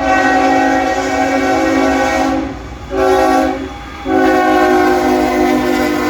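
Nathan K5HL five-chime air horn on a CSX GE ES44AH locomotive sounding for a grade crossing. A long blast ends about two and a half seconds in, a short blast follows about three seconds in, and another long blast starts about four seconds in.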